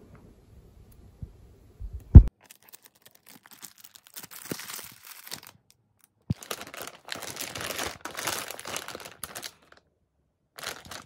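Plastic packaging crinkling and rustling in several spells as wrapped items are handled, with one loud, short thump about two seconds in.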